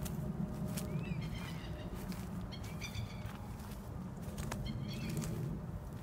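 Birds calling several times with short chirps and harsher stacked notes, over a steady low rumble.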